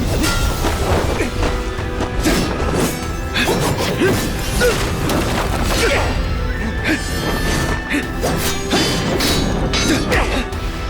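Soundtrack music under a run of fight sound effects: repeated hits, thuds and crashes.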